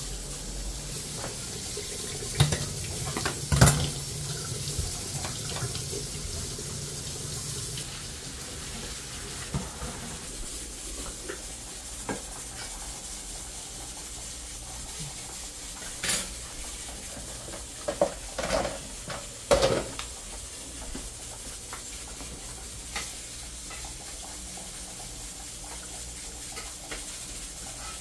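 Water running from a kitchen tap into a steel sink while hands are washed, stopping about a third of the way in. Sharp knocks of dishes come early, and a cluster of pot and utensil clinks comes later.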